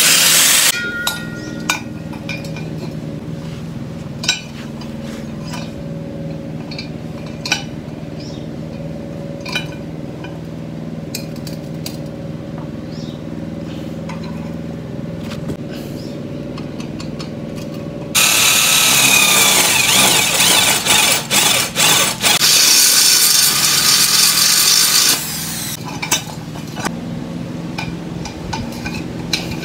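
An angle grinder grinds steel and stops within the first second. It is followed by a steady low hum with scattered sharp metal clinks. About two-thirds of the way in, grinding starts again, loud, for about seven seconds with brief dips, then stops, and a few more clinks follow.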